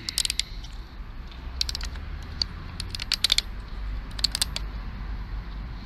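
Red plastic tamper-evident ring on a Castrol oil bottle cap being torn off by hand, making about four short clusters of sharp plastic clicks and snaps.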